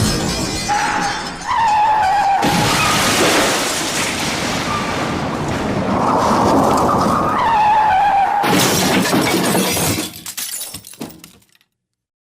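Layered comedy car-crash sound effect: metal crunching and glass shattering in a long, dense smash, with short wavering pitched tones of honks or squeals over it. About two-thirds of the way in, it breaks into scattered clattering debris that thins out and dies away to silence.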